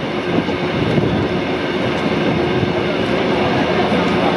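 Narrow-gauge passenger carriage of a steam-hauled train running along the line, heard from an open window: a steady noise of wheels on the rails, with a faint steady hum through it.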